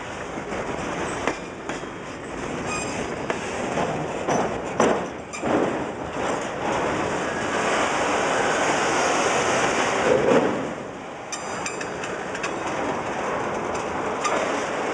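Freight train boxcars and autorack cars rolling past, their wheels clattering over the rail joints. A few sharp knocks come about four to five seconds in, and a brief high-pitched wheel squeal comes about eleven seconds in.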